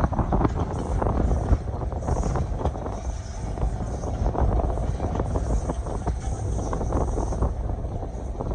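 Passenger train running along the track: a steady low rumble with irregular clattering from the wheels and rails, and wind buffeting the microphone.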